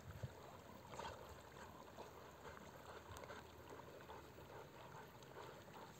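Near silence: faint outdoor ambience with soft water sounds from dogs swimming in a pond.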